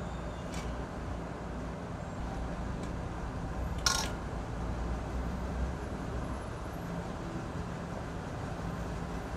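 A spoon set down once in a ceramic bowl with a sharp clink about four seconds in, over a steady low background rumble.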